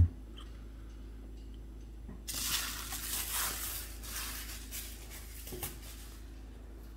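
Irregular rustling that starts about two seconds in and lasts about four seconds, over a low steady hum.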